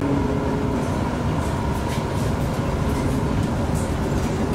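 A tram running along street track, heard from inside the car: a steady rumble of wheels on rail with a faint steady whine and a few light clicks.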